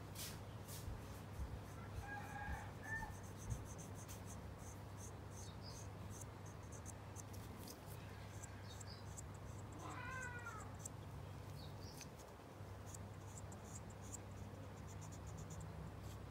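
Cotton swab rubbing and scratching against a plastic model-kit part in short, faint strokes, over a low steady hum. Two brief chirp-like animal calls break in, about two seconds in and again near the middle.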